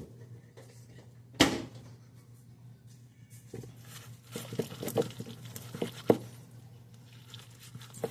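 Cooking utensils and cookware being handled: one sharp knock about a second and a half in, then a run of lighter clinks and taps, over a steady low hum.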